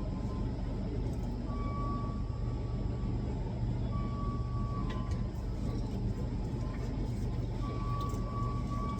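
Machinery running steadily with a low hum, with three brief high-pitched tones coming and going.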